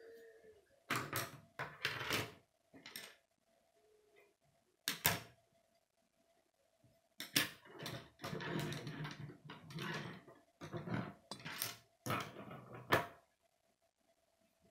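K'nex plastic rods and connectors clicking and snapping together, with pieces knocking on a wooden tabletop, in irregular bursts. The handling is sparse at first and becomes a busy run of clicks and rattling from about halfway through until near the end.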